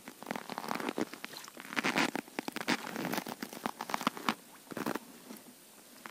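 Ice and slush crackling and scraping in quick, irregular clicks as hands work in an ice-fishing hole to check a burbot set-line, stopping about five seconds in.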